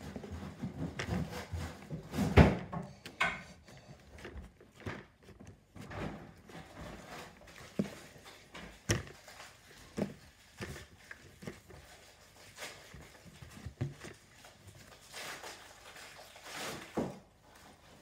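Hands kneading and pressing slime on a tabletop: irregular small sticky pops and soft knocks, with one louder knock about two seconds in.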